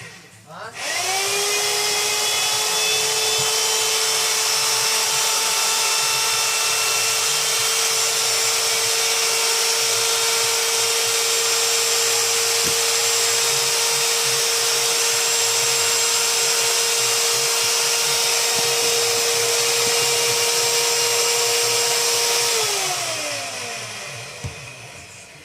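Cordless drill-driver running free at a steady high speed, a motor whine with a hiss over it. It spins up quickly about a second in and winds down near the end.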